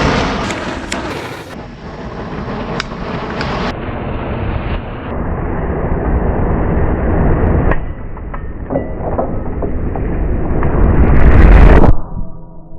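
A big mass of matches burning: a rushing fire with scattered sharp crackles and pops, swelling to its loudest near the end before cutting off abruptly.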